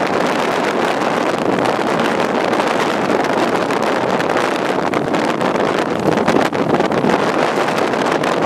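Strong wind blowing across the microphone: a loud, steady rushing with small irregular buffets.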